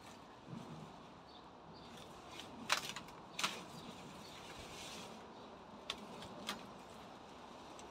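Leafy weeds and vine stems being pulled out by hand: rustling foliage with a few sharp cracks, the loudest a pair about three seconds in and two smaller ones near the end.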